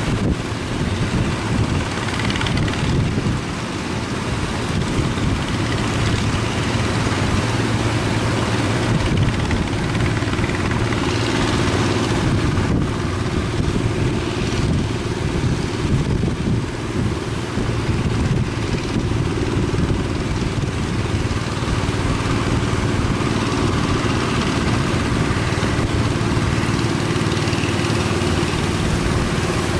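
An engine running steadily, a constant low hum, over a continuous rushing noise of wind and surf.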